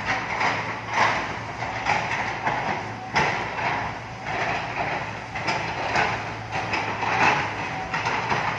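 Engine running steadily under irregular clanks and knocks, about one a second.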